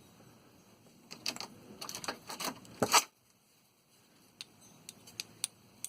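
Metal parts of a pressure relief valve being handled and worked apart: a run of small clicks and scrapes, ending in a sharp click just before the halfway point, then a few faint ticks.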